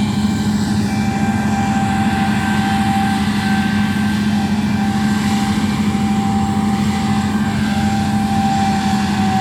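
Farm machinery engine running steadily at constant speed: an even low drone with a fixed higher whine above it, unchanging throughout.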